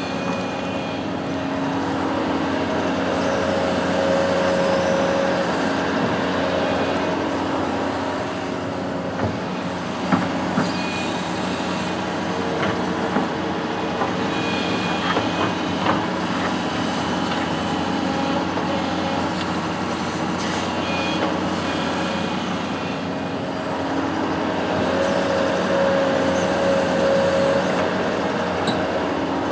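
Construction machine's engine running steadily, with a higher whine swelling twice, a few seconds in and again near the end, and a few sharp knocks in the middle.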